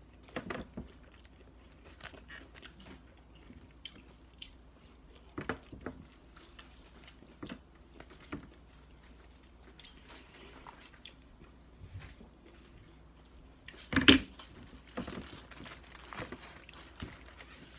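Close-up chewing and biting of crunchy fried onion rings, with scattered small crunches and clicks. One louder knock about fourteen seconds in.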